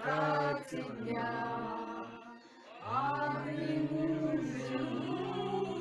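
Chant-like singing: two long held notes, with a short break about two seconds in.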